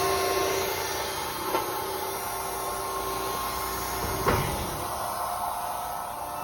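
Cramalot HX72 baler running through a cycle: a steady machine hum with a held whine that fades about a second and a half in, and two sharp knocks, the louder one about four seconds in.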